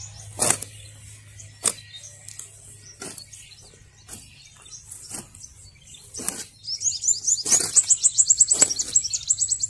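A hoe blade chopping into dry soil, a sharp strike about once a second as earth is pulled around a freshly replanted date palm sapling. About seven seconds in, a bird starts a fast high trill of rapid chirps, which becomes the loudest sound.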